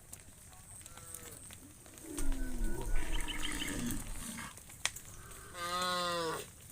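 Cattle mooing: a faint short call about a second in, a louder, lower drawn-out call with some low rumble around the middle, and a clear, full moo near the end.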